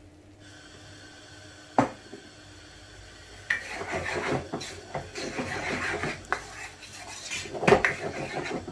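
A spoon stirring and scraping a wet onion and tomato mixture around a non-stick frying pan, clattering against the pan. The first few seconds are quieter, with a single knock about two seconds in; the stirring starts about three and a half seconds in, with a loud knock near the end.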